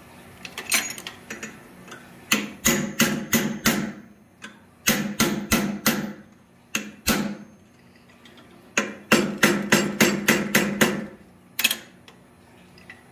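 Hand hammer striking a steel tool driven into the cut of a red-hot steel block held in a vise, spreading the block open. Sharp, ringing metal-on-metal blows come in quick runs of about four or five a second, with single strikes between the runs.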